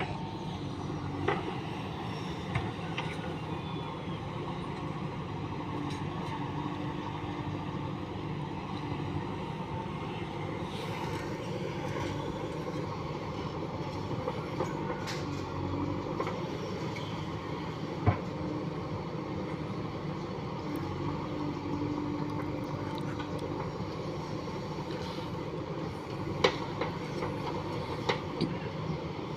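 Diesel engine of a JCB 3DX backhoe loader running steadily under work, with a few sharp metallic clanks, one about 18 seconds in and a cluster near the end.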